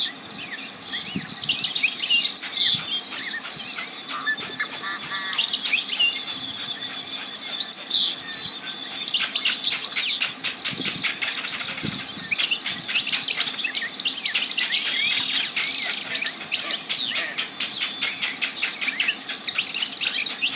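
Many small birds chirping and twittering at once, with a fast, regular ticking of about five clicks a second running through most of it.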